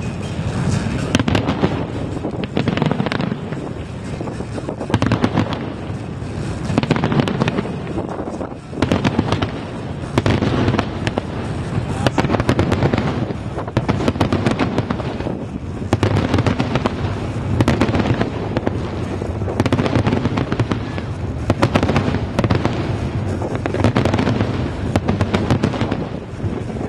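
Large aerial fireworks display bursting without pause: dense volleys of sharp cracks and booms overlapping into a continuous barrage with a deep rumble underneath.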